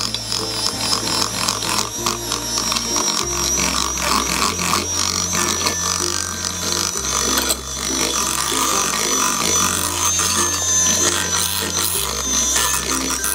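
Electric hand mixer running steadily with a high whine as its beaters churn pancake batter, with background music and a stepping bass line playing over it.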